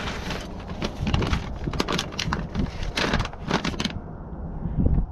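Crinkling and rustling of paper and a plastic bag handled with gloved hands as a folded instruction sheet is pulled out and opened: a quick run of short, sharp crackles.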